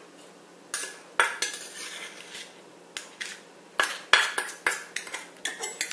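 Metal spoon clinking and scraping against bowls as tablespoons of sugar are scooped from a stainless steel bowl and dropped into the mixing bowl: a string of short, sharp clinks.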